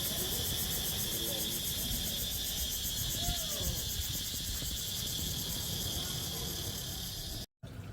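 A steady, high-pitched chorus of insects chirping with a fine, even pulse, over faint low rumble. It cuts off suddenly near the end.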